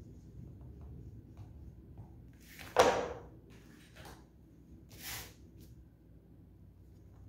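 Handling sounds on a wooden drafting board. About three seconds in there is a sharp swish ending in a knock as a tool is set down. About five seconds in comes a softer rustle of paper.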